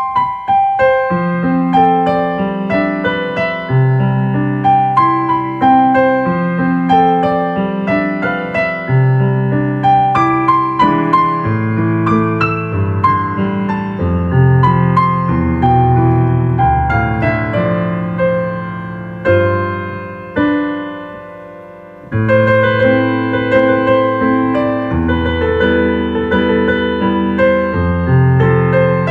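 Slow, calm piano music: sustained notes and chords in a gentle flowing pattern, fading down briefly about two-thirds of the way through before the playing resumes.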